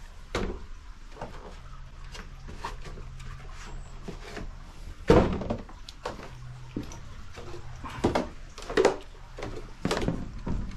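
Irregular knocks and thumps of footsteps and handling on wooden floorboards in a small wooden passage, the loudest about five seconds in, with a faint steady low hum in parts.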